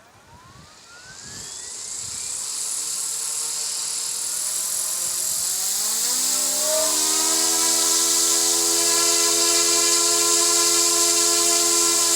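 Eachine E250 RC Apache helicopter's electric motors and rotors spooling up: a whine rising in pitch and loudness with a growing rush of air, settling to a steady pitch about seven seconds in.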